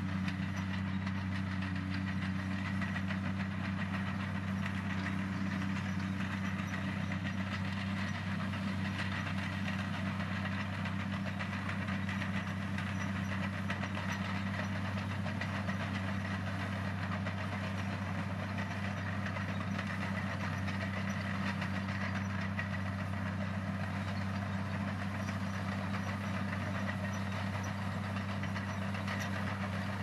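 Komatsu bulldozer's diesel engine running steadily, a deep even drone that holds the same pitch throughout.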